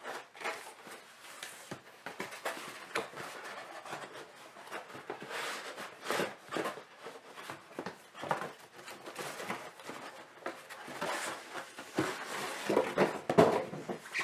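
Irregular rustling, scraping and sharp knocks of a cardboard package being handled and opened, busiest and loudest near the end.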